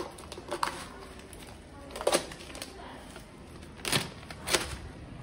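Bubble wrap crinkling in several short crackles as a new scooter tyre is pressed down and tilted up on it, the loudest two near the end.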